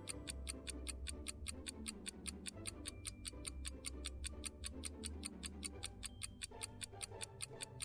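Countdown-timer sound effect ticking at about four to five ticks a second, over quiet background music.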